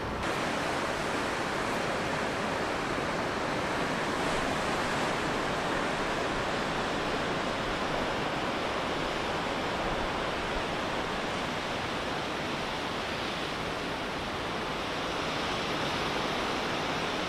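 Steady rushing wash of ocean surf breaking over rocks and along a sandy beach, mixed with wind.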